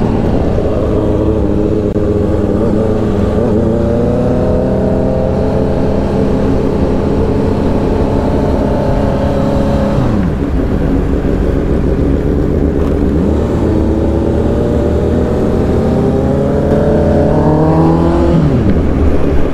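Scooter and sport motorcycle engines running while riding along a street. The engine note climbs steadily for several seconds and then drops back, twice, as the bikes accelerate and ease off.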